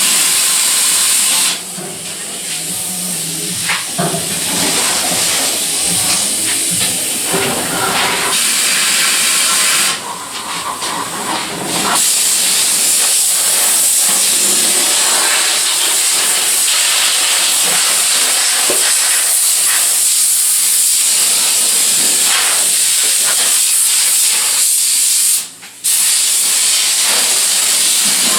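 Compressed-air tool hissing loudly and steadily in long blasts, with three short let-offs.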